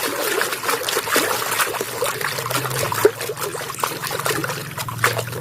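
Water trickling and splashing over a muddy plastic toy as it is washed, with many small irregular splatters and clicks.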